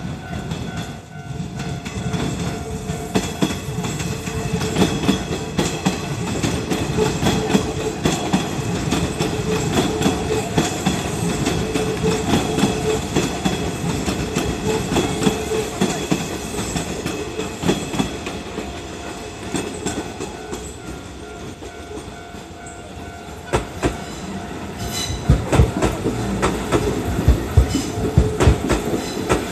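Electric commuter trains passing a level crossing, their wheels clattering over the rail joints, with steady ringing tones from the crossing's warning bell held over them. The clatter eases briefly, then turns into louder, evenly spaced wheel knocks near the end.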